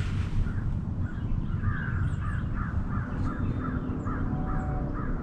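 A bird calling over and over in a quick, even series, about three calls a second, starting about a second in. Under it runs a steady low rumble.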